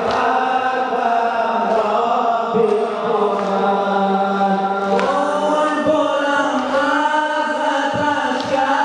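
A group of young men chanting a Shia noha lament together in long held lines. A new line begins about five seconds in.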